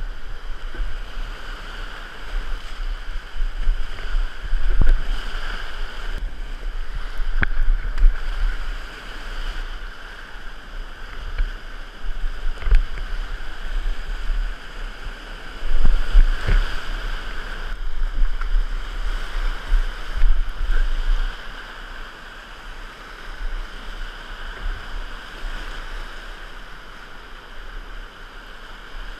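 Whitewater rapids rushing and splashing right around a kayak, with a low buffeting rumble that swells and fades as the boat runs through the waves. A few sharp knocks and splashes stand out along the way.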